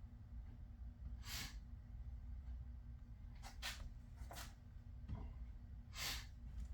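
A person's breathing close to the microphone: a few short, hissy breaths or sniffs, heard over a low steady hum.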